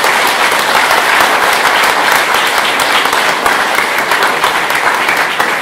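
Audience applauding: a dense, steady clatter of many hands clapping at once.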